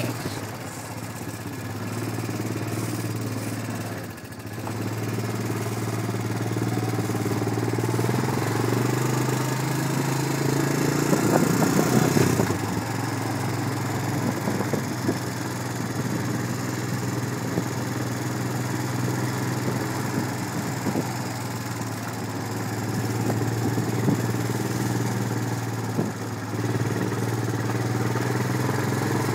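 A motor vehicle's engine running at low speed, a steady low hum that shifts a little in pitch, with a louder, rougher stretch about eleven seconds in.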